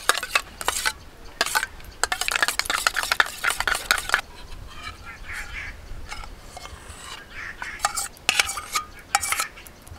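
Metal spoon beating sour curd in a small steel cup: rapid clinking strokes for about four seconds, then slower, scattered clinks and scrapes as the curd is spooned out.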